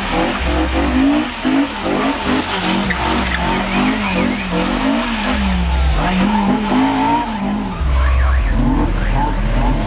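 Honda S2000's four-cylinder engine revved up and down over and over as the car spins donuts, its tyres skidding on wet pavement.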